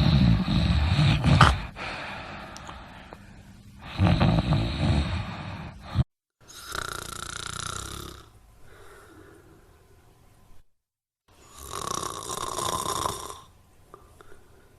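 Human snoring. Two loud snores come about four seconds apart, each lasting a second and a half to two seconds. After a short cut to silence, two more snores follow with a different, brighter tone, the second after another brief gap of dead silence, as separate snoring recordings are joined together.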